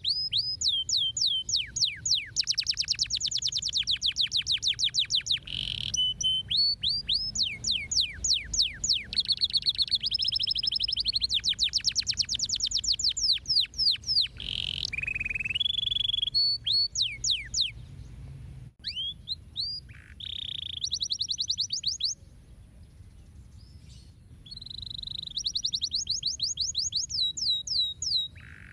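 Domestic canary singing: fast trills of rapidly repeated notes, quick downward-sweeping notes and buzzing rolls. The song breaks off briefly about two-thirds through, runs quieter for a few seconds, then picks up again near the end.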